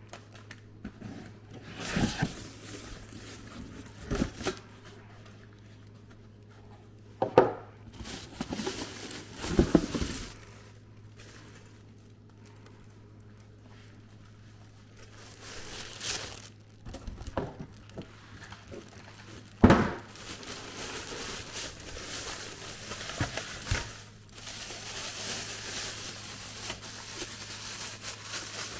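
Cardboard box and packaging being handled: a series of separate knocks and rustles from the box flaps and inserts, then steady crinkling of a plastic bag over the last several seconds.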